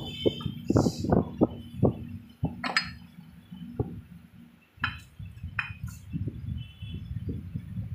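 Steel gears and shafts of a Swaraj 742 XT tractor gearbox clinking and knocking against each other and the cast housing as they are handled by hand. The knocks come quickly in the first couple of seconds, followed by a few sharper, ringing clinks.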